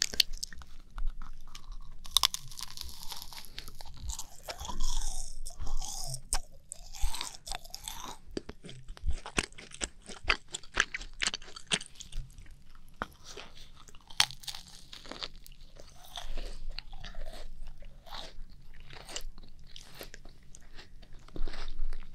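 Macarons being bitten and chewed right at the microphone, the crisp shells cracking into many small, sharp crunches followed by soft chewing. Picked up close on a binaural ASMR microphone.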